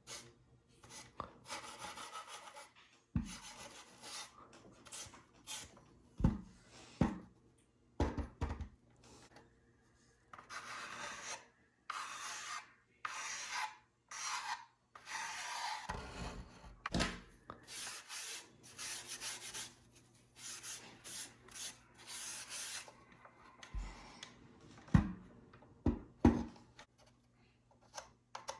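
Hand scraping and scuffing on the painted plastic housing of a Nerf blaster, in uneven strokes with pauses, weathering the paint. Now and then the blaster knocks dully as it is handled.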